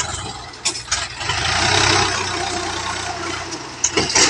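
Diesel engines of tractors and a hydraulic excavator running steadily while soil is dropped from the excavator bucket into a tractor trolley: a loud rush of falling earth about a second and a half in, with several knocks.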